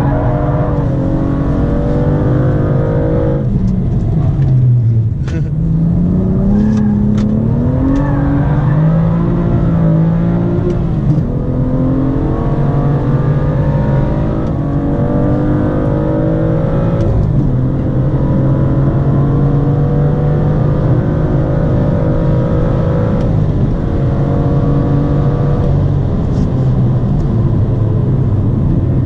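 2017 BMW M2's turbocharged 3.0-litre straight-six with a performance exhaust, heard from inside the cabin under hard track driving. The engine note drops over the first five seconds, climbs again, then holds high with a few brief dips, with occasional sharp clicks over it.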